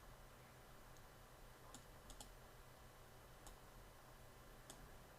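Faint clicks of a computer mouse, about six scattered over a few seconds, two of them close together about two seconds in.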